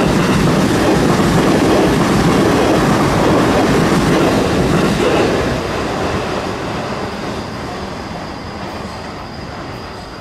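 A train passing over the level crossing close by, wheels clattering over the rails, loud for the first five seconds or so and then fading as it moves away.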